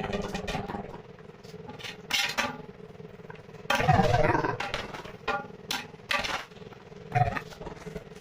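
Metal kitchen utensils clattering and clinking against pots and dishes, in scattered short knocks over a faint steady hum, with a louder jumble of clatter and background voices about four seconds in.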